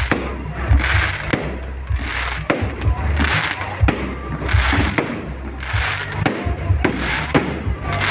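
Aerial fireworks bursting in quick succession, with deep booms about once a second and a crackling hiss after each burst.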